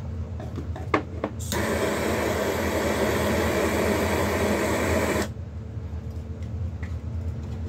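A few sharp clicks, then a gas soldering torch flame hissing steadily for about four seconds before cutting off abruptly. The flame is heating the joint of a sterling silver square-wire teardrop frame to flow the solder.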